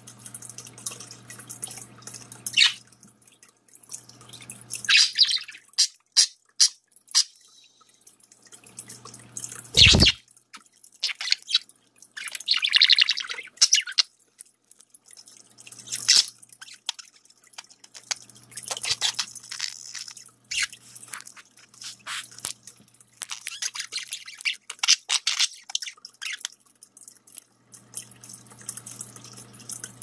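Budgerigar bathing in a flower-topped pet water fountain: irregular splashes and wing-flutters in the water, with the fountain's dripping trickle underneath. A single loud thump about ten seconds in.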